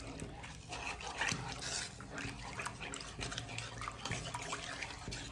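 Spatula stirring thick health-mix porridge cooking in a nonstick pan: irregular wet scraping and stirring strokes.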